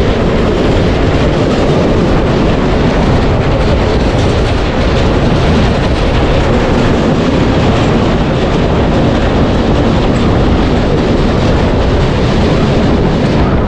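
Express train coach running at speed, heard near an open coach door: a loud, steady rumble and rattle of the wheels on the rails.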